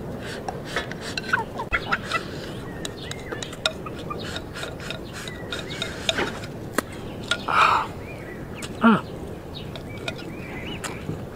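Eating sounds from a ceramic bowl: sipping and slurping from its rim, with chopsticks clicking against it. Birds chirp in the background, and one louder falling call comes near the end.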